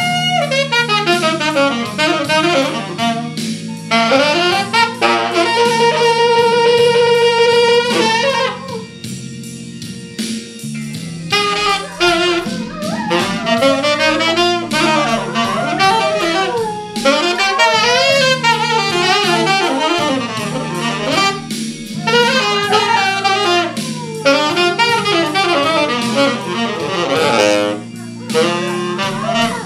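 Saxophone playing a jazzy melody, fast runs and long held notes, over a low steady backing accompaniment, with a dog howling along at times.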